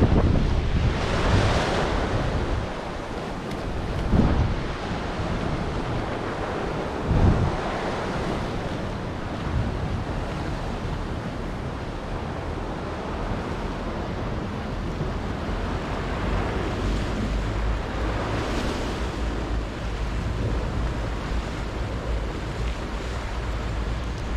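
Sea waves washing against a rocky shore, with wind buffeting the microphone. A couple of louder wave surges and short gusts stand out over a steady rush.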